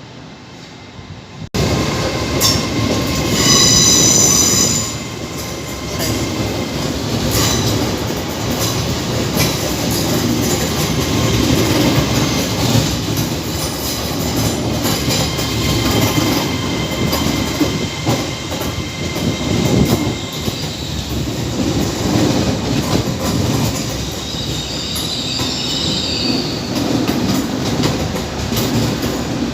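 Passenger train moving along the platform tracks, with running rumble and wheel clatter. Its wheels squeal high-pitched, loudest about three to five seconds in, with fainter squeals again later.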